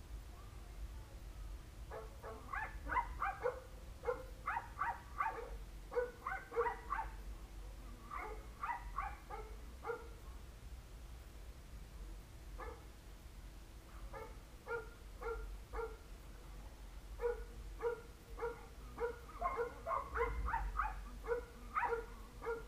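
A dog barking in quick bouts of short, same-pitched barks, several a second, with pauses of a second or two between bouts.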